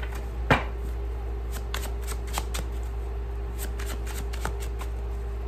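Tarot cards being shuffled by hand: a run of soft, quick card flicks and rustles, with one louder click about half a second in.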